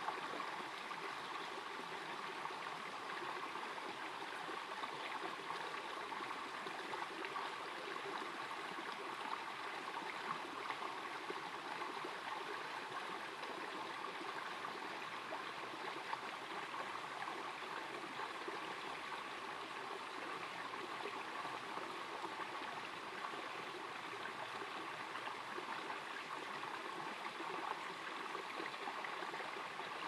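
A steady, even rush of flowing water.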